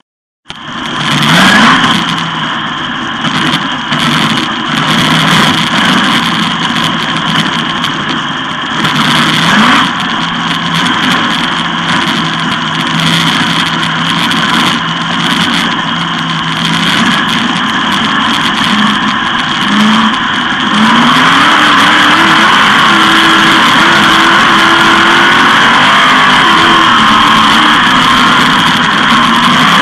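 A 360 sprint car's V8 engine, heard on board, running hard with its pitch climbing and falling as the throttle is worked. The engine is louder and steadier over the last third.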